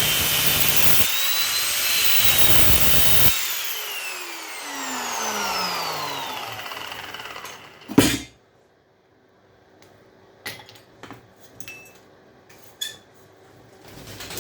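Handheld power tool cutting a brass fitting off copper pipe, running with a high whine, switched off about three seconds in and winding down over several seconds. A sharp knock follows near eight seconds, then a few faint metal clinks.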